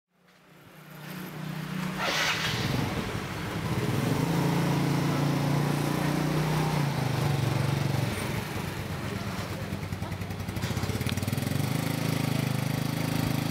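Small motorcycle engines running past on a road, with a steady traffic hum; the sound fades up from silence over the first couple of seconds.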